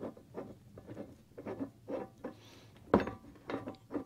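Large nut of a bearing press kit spun by hand down its greased threaded rod to take up the tension on a wheel bearing: a run of small metallic scrapes and clicks, two or three a second, with one sharper click about three seconds in.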